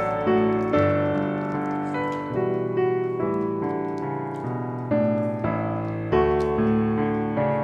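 Background solo piano music, a series of notes and chords struck one after another.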